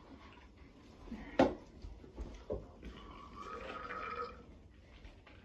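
Aluminium soda cans being drunk from and handled, with a sharp knock about a second and a half in as a can is set down on a wooden coffee table, and a lighter knock about a second later.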